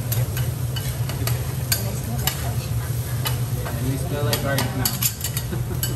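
Two metal spatulas scraping and clicking irregularly against a steel teppanyaki griddle as fried rice is chopped and turned, with the rice sizzling. A steady low hum runs underneath.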